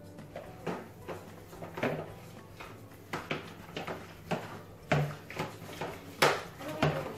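Hands squishing and kneading sticky cornflour-and-conditioner slime dough in plastic mixing bowls: irregular wet squelches and light knocks against the bowls, the loudest about six seconds in.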